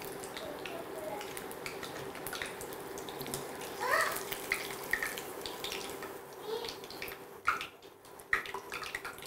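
Batter-coated paneer cubes deep-frying in hot oil: a steady sizzle and bubbling, with light clicks of a metal slotted spoon against the steel pan as the cubes are lifted out.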